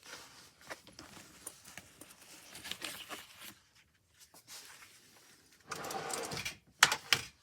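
Rustling handling noise with scattered light clicks, ending in a few sharp clicks near the end.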